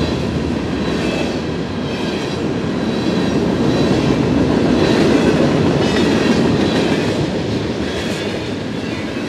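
Freight train of covered hopper and tank cars rolling past close by, a steady rumble of steel wheels on the rails that swells slightly midway.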